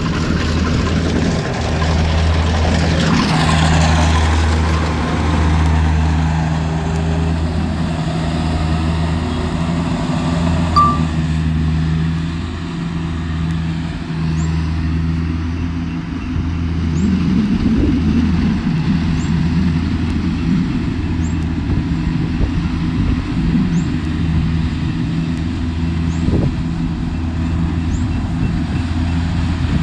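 Kubota combine harvester's engine running steadily under load, a continuous low hum that swells and eases slightly. A faint high chirp repeats about once a second through the second half.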